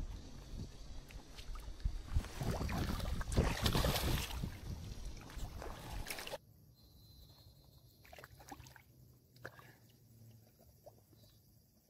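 Water splashing and sloshing in the shallows as a hooked carp is brought in and handled at the river's edge. About six seconds in it drops abruptly to a quiet background with a few faint knocks.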